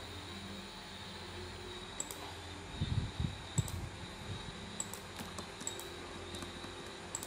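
Scattered, irregular clicks of a computer mouse and keyboard, with a few dull knocks about three seconds in, over steady background hiss.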